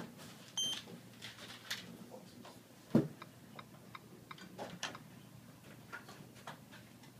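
A short, high electronic beep from the payment terminal setup, about half a second in. A thump follows about three seconds in, then a run of light ticking clicks as a PIN is keyed on the tablet's touchscreen keypad.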